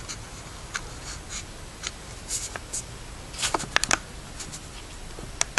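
Handling noise as the camera is moved in closer: scattered small clicks and rustles, with a quick cluster of sharper clicks about three and a half seconds in.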